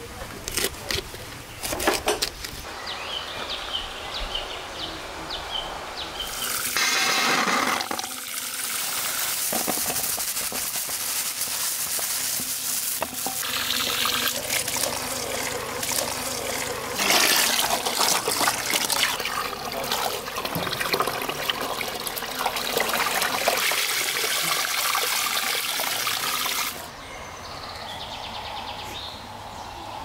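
A knife chopping leafy greens on a wooden cutting board, a few sharp knocks at the start. Then a stream of spring water pours into a metal bowl while a hand splashes in it: a steady rushing splash that cuts off near the end.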